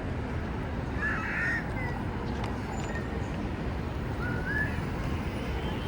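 Busy pedestrian street ambience: a steady hubbub of the crowd. Short, squeaky high-pitched calls cut through about a second in and again about four seconds in.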